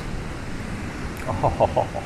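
Steady rush of wind and surf on a beach. About one and a half seconds in comes a brief run of short voice-like sounds.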